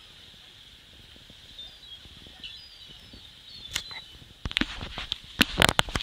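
Gulls giving short, faint calls while flying overhead. In the second half, a burst of loud, sudden whooshes and knocks hits the microphone.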